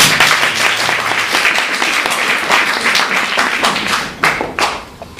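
Small audience applauding: a dense patter of hand claps that thins to a few last separate claps about four seconds in, then stops.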